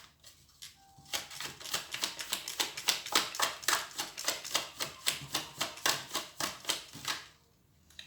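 A deck of tarot cards being shuffled by hand: a quick, even run of card snaps, about five a second, starting about a second in and stopping shortly before the end.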